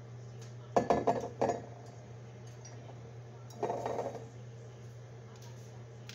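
Kitchen clinks: a small glass seasoning bottle knocks against a cooking pot several times in quick succession, then clatters as it is set down on the counter.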